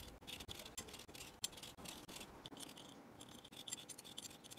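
Potatoes being peeled: quick, faint scraping strokes of a blade against the skin, several a second and irregular.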